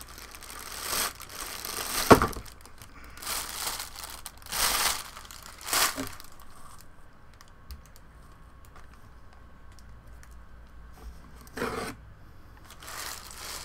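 Packaging being torn open and crinkled by hand while a mystery box is unwrapped: several short rustling, tearing bursts with a sharp click about two seconds in, a quieter stretch of faint handling, then more crinkling near the end.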